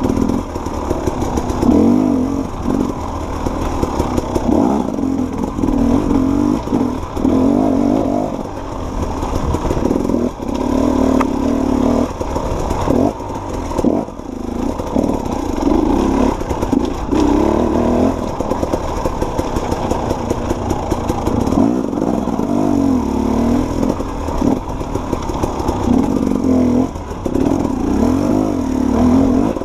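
Off-road dirt bike engine revving up and down repeatedly as it is ridden over rough single-track, with occasional knocks from the bike.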